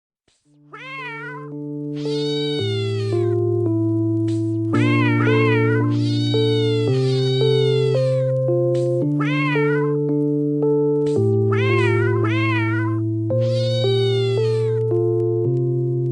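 Repeated cat meows, each rising then falling in pitch, some in quick pairs, over music of sustained chords that change about every two seconds.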